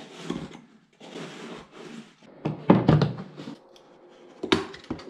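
Handling noises: rustling, then a cluster of knocks and thuds as a plastic canister is handled, and a sharp knock near the end.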